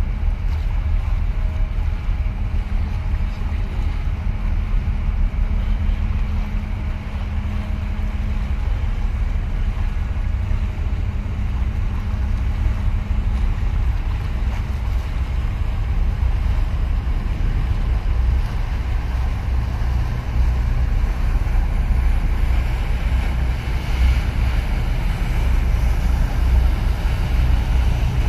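Deep, steady rumble of a large container ship's engines passing close by, with a steady hum over it for the first half, mixed with wind and lapping water. The low rumble grows stronger in the second half.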